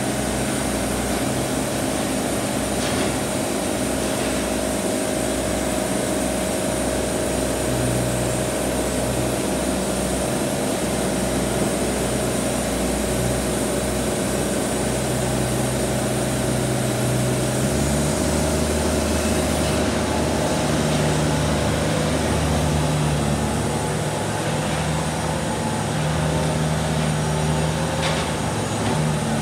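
Wood-Mizer portable band sawmill running steadily, its engine driving the band blade through a log. About two-thirds of the way through, the engine note shifts lower and the high hiss of the cut fades.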